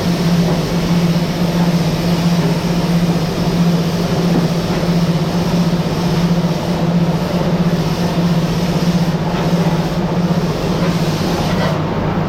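Factory machinery running steadily: a constant low hum under a loud, even mechanical rush.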